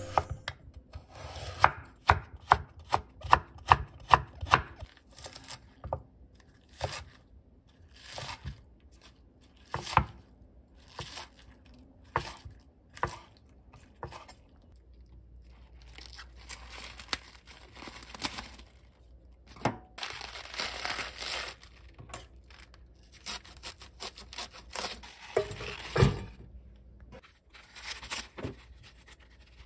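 Chef's knife cutting on a wooden board: thin slices through a carrot, first a quick run of chops and then slower single cuts, and green onions cut into short lengths. Later, crisp bomdong (flat spring cabbage) leaves rustle and tear as they are pulled off the head, with one louder knock.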